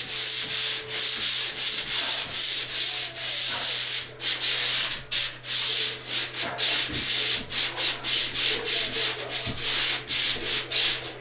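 Swivel-head pole sander rubbing back and forth over dried joint-compound patches and skim coat on a drywall ceiling, sanding them smooth. It makes a rhythmic rasping, about two to three strokes a second.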